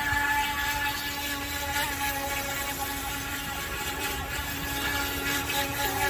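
Electric 390 motor of an INTEY H105 remote-control boat running at a steady pitch, a constant whine as the small boat drives across the water.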